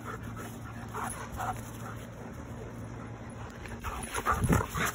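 A dog panting and breathing hard close by after running, louder about four seconds in.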